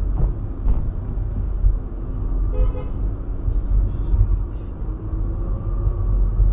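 A car driving along a street, heard through a dashcam as a heavy low rumble of engine and road noise, with a car horn sounding over it.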